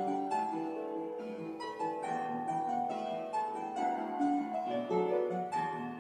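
Instrumental background music: a piano melody of separate struck notes over a sustained accompaniment.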